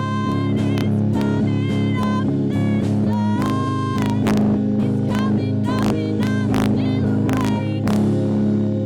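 A band playing live: a guitar lead with bent and wavering notes over steady bass and drum hits. Near the end the drums stop and a held chord rings on.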